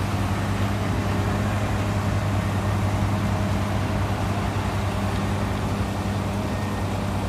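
Truck engine running steadily, a constant low drone with no change in speed.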